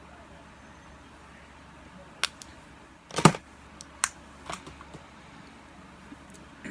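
A few sharp clicks and knocks of makeup products and tools being put down and picked up, the loudest a short clatter about three seconds in.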